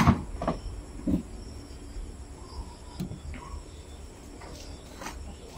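A few knocks and bumps of a plastic chair being picked up and handled, the first the loudest, over a steady low rumble.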